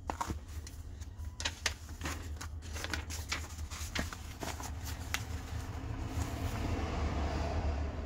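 Paper pages of a spiral-bound booklet being flipped by hand: a quick run of crisp flicks and flutters, then a softer rustling of paper near the end. A steady low hum runs underneath.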